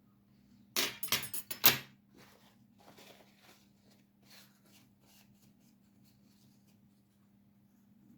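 Kitchen things being handled: a quick run of sharp clattering knocks about a second in, the last one loudest, then a few faint light clicks. A steady low hum runs underneath.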